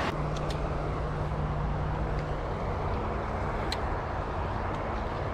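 Steady road traffic noise with a low engine hum that shifts slightly higher about three seconds in, mixed with flowing creek water. A few light clicks sound near the start and once more in the middle.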